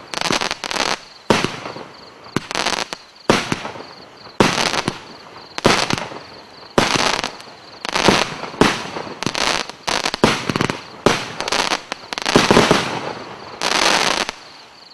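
Nuclear Weapons 50-shot firework cake firing a rapid run of shots, each bang followed by crackling, about one or two a second. The shots stop shortly before the end.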